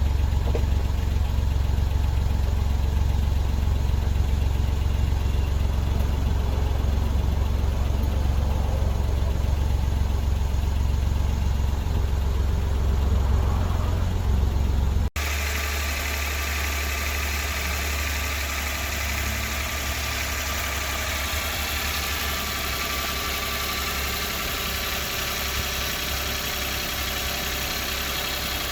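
Suzuki K6A 660 cc three-cylinder turbo engine idling steadily. About halfway through the sound changes abruptly to a quieter, brighter take of the engine running.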